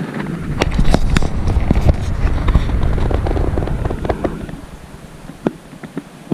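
Strong wind gusting over the microphone, a heavy low rumble with scattered sharp clicks and crackles, easing off after about four and a half seconds to a few isolated clicks.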